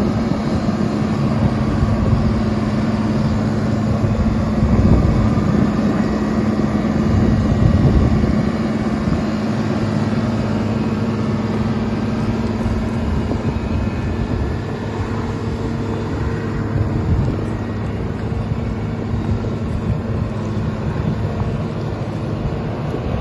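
1995 Caterpillar M318 wheeled excavator's diesel engine running steadily.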